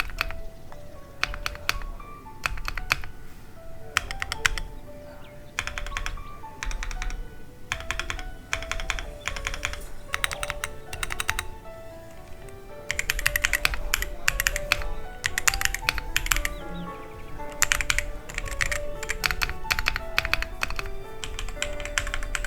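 Typing on a custom LMK81 75% mechanical keyboard with an aluminium case, polycarbonate plate, full foam and tactile Crystal Brown switches: bursts of quick keystrokes with short pauses, giving a deep, warm clack. Background music plays along.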